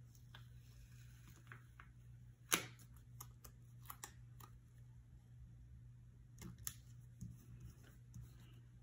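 Soft scattered taps and clicks of fingers handling paper stickers and pressing them onto a planner page, the sharpest about two and a half seconds in, over a faint steady low hum.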